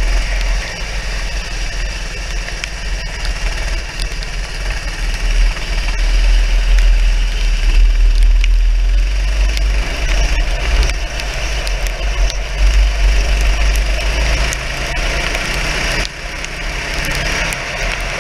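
Racing go-kart engine running under power, heard from on board the kart, over a steady hiss of wind and wet-track spray. The sound drops noticeably about two seconds before the end.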